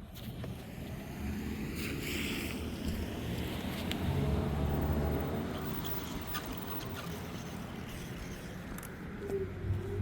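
Gotrax Ares electric scooter making the unwanted noise its owner calls a sound problem: a low mechanical rumble with a faint whine that grows louder about four seconds in, then eases.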